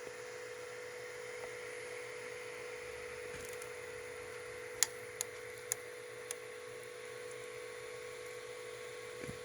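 Tronxy XY2 Pro Titan 3D printer running with a steady hum. About halfway through come four sharp knocks, roughly half a second apart. This is the knocking the owner cannot explain, which he says comes with the filament moving back a little.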